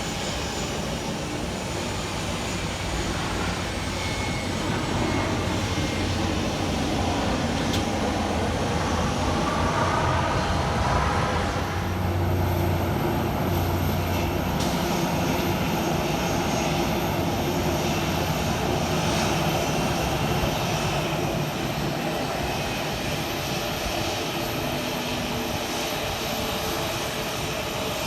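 Airplane engines running steadily, with a rising whine about ten seconds in and a shift in the sound a couple of seconds later.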